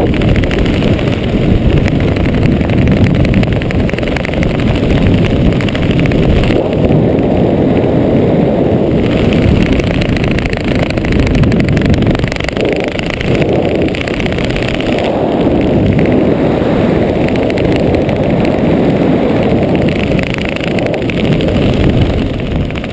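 Wind buffeting the microphone of a helmet-mounted GoPro camera during a parachute descent under an open canopy: a loud, steady low rush.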